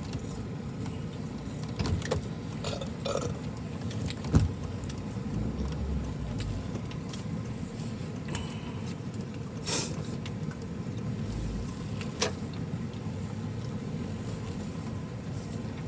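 Steady low hum of a car cabin, with a few short clicks and a brief rustle.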